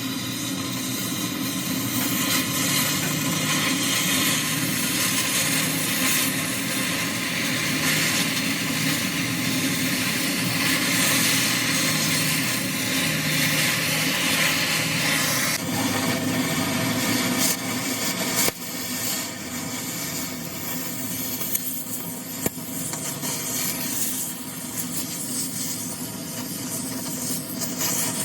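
Steady machine-shop noise of metal being cut or ground by a power tool or machine. The sound changes abruptly about fifteen seconds in, with a few sharp clicks later.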